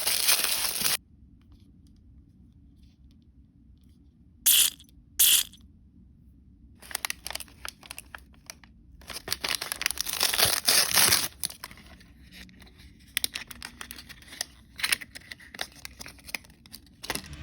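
Plastic blind-bag packaging being torn open and crinkled by hand: a tearing rip at the start, two short sharp rips about four and a half and five seconds in, then a long run of crinkling and rustling.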